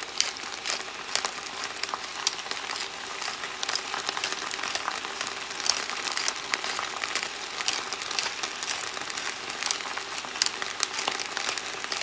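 Stir-fried vegetables (bok choy, carrots, bell pepper, celery) sizzling in a stainless steel pot: a steady hiss with many small crackles and pops.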